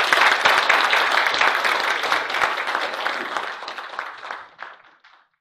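Congregation clapping after a song, the applause thinning out and fading away near the end.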